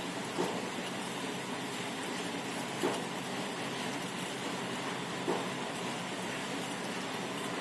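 Steady hiss of a pan of kadha, spiced herbal water, boiling on the stove, with a brief soft plop about every two and a half seconds.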